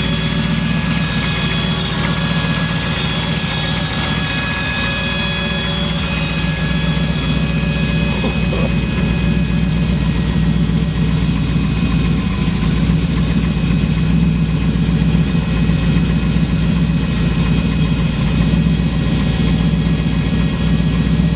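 A 6-liter race truck engine idling steadily, slightly louder in the second half.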